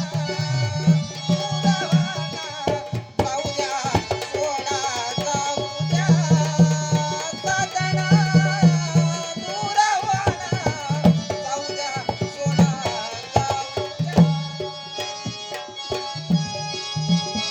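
Instrumental break in a Marathi folk song: hand drums play a repeated rhythm under a wavering melody line, with no singing.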